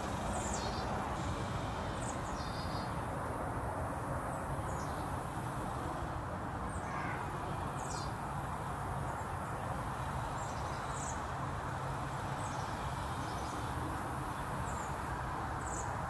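High, thin bird call notes, each a short downward slide, repeating irregularly about once a second over a steady low rushing background noise.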